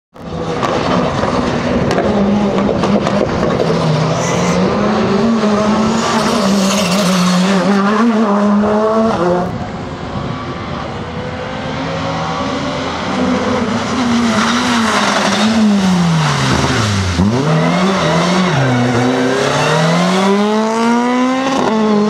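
Rally car engines at full throttle, revs climbing and dropping sharply with gear changes and lifts. About two fifths of the way in the sound cuts to another car, quieter at first, then running up through the revs again.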